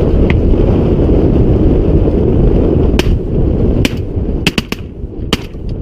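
Shotguns firing from a duck blind: about five sharp reports from more than one gun, starting about halfway in and coming close together over two to three seconds. Before and under the shots, heavy wind buffets the microphone.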